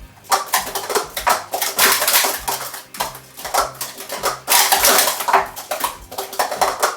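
Plastic Speed Stacks sport-stacking cups being rapidly stacked and unstacked on a StackStation stacking table: fast runs of light clattering clicks in quick clusters with brief pauses between.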